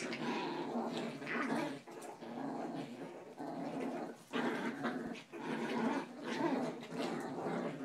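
Chihuahuas growling while they tug on a toy in a game of tug of war. The growls come in long bouts with brief breaks.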